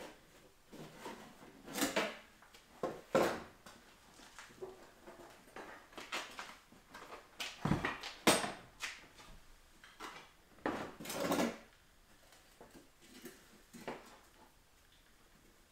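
Wood stove being cleaned out: irregular metal scrapes, clanks and knocks, a few louder than the rest, dying away near the end.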